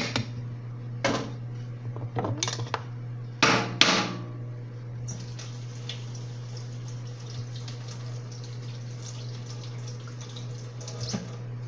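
Microwave oven running with a steady low hum. A few sharp knocks and dish clatter come in the first four seconds, then the hum goes on with faint clicks.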